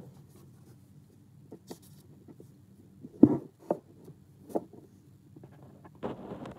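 A few short taps and knocks of a pen and hand on a sheet of paper, with light rubbing. The loudest knock comes about three seconds in.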